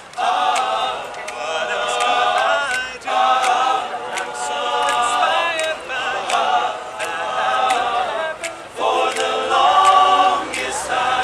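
Male a cappella group singing in close harmony, with held chords in phrases that break off briefly about three, six and nine seconds in. Sharp clicks keep a steady beat about twice a second.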